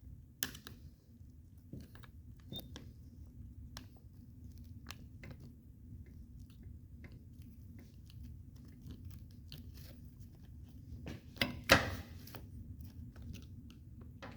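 Rubber vent window seal being pressed and worked into the groove of a Chevy II Nova vent window frame by hand: scattered small clicks and creaks, with a louder crunch about eleven and a half seconds in.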